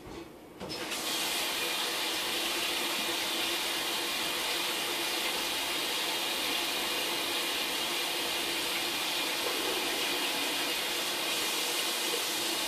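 Kitchen tap running steadily, water splashing over strawberries being rinsed. The water comes on within the first second and shuts off at the very end.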